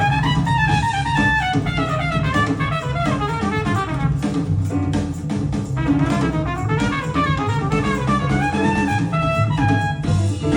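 Jazz music with a drum kit and a brass melody, played through a pair of Cabasse Minorca MC40 three-way bookshelf speakers.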